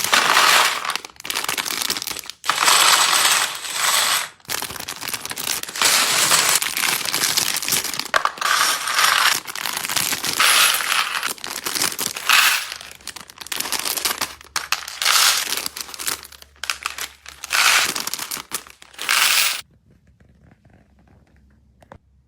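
Handling of a Lego set during unboxing: small plastic Lego pieces clattering and clinking, with packaging rustling, in a dense run of bursts that stops abruptly near the end.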